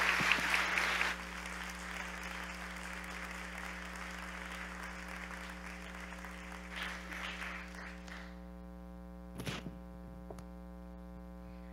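Audience applauding in a large hall, loud at first, then thinning out and fading over several seconds, over a steady hum. A brief knock sounds near the end.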